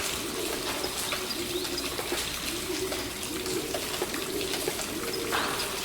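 Pigeons cooing repeatedly over a steady hiss of falling rain with scattered drips, and a few short high chirps from small birds.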